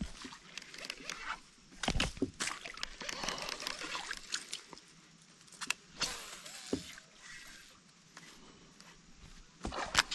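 Water trickling and splashing around a fishing kayak, with scattered sharp clicks and knocks of rod and tackle.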